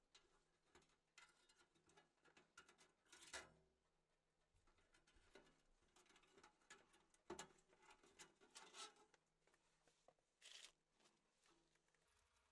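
Faint clinks, taps and scrapes of thin sheet-metal stove panels being handled and slid together, with a few sharper knocks about three and a half, seven and ten and a half seconds in.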